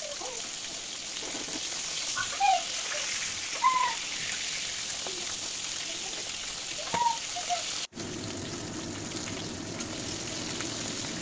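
Rohu fish pieces frying in hot mustard oil in a steel kadai: a steady sizzle, with a few short high chirps and a brief drop-out about eight seconds in.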